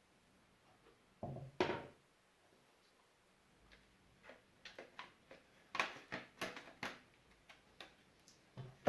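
Hard plastic knocks and clicks as the cover is fitted onto a Eufy robot vacuum: two knocks about a second and a half in, then a run of sharp, irregular clicks from about four seconds to near the end.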